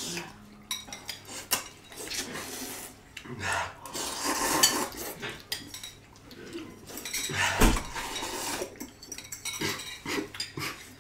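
Utensils clinking and scraping against handheld bowls as several people eat noodles quickly, in irregular clicks and scrapes.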